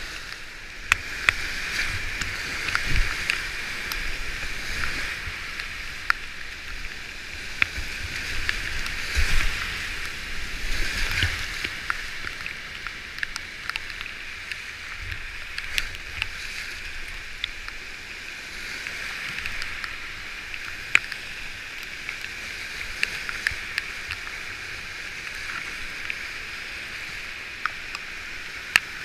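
Steady rush of high-water whitewater rapids heard from a kayak in the current, with frequent sharp splashes and knocks and a few louder surges as the boat drives through waves.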